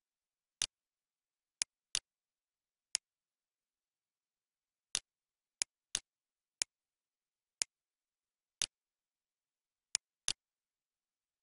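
Computer mouse button clicking: about a dozen short, sharp clicks at irregular intervals, some in quick pairs, with nothing audible between them.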